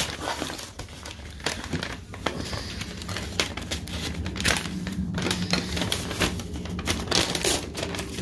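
Paper or plastic mail packaging crinkling and rustling as it is handled and unwrapped, with many irregular small clicks and crackles. A steady low hum sits underneath from about two seconds in.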